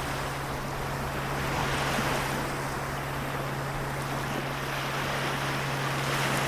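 Seto Inland Sea waves washing in, swelling about two seconds in and again near the end, over a steady low hum.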